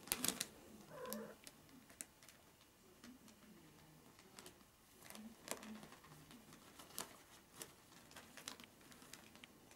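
Faint crinkling and rustling of paper and a plastic bag, with scattered sharp clicks, as a Maine Coon mother cat and her kittens of about three weeks move about on them. A short soft cat sound comes about a second in.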